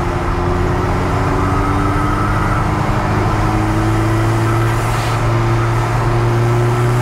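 Rear-mounted 1.9-litre Volvo 16-valve turbo four-cylinder of a Hillman Imp pulling steadily on the road, its note rising slowly as the revs climb. A brief hiss comes about five seconds in.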